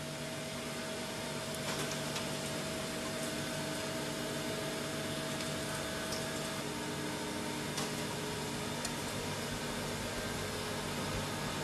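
CNC machining centre drilling C55 steel completely dry with a 12 mm DiJet FDM-120 solid carbide drill, spindle at about 1,500 rpm: a steady machine hum with several held tones and a few faint clicks.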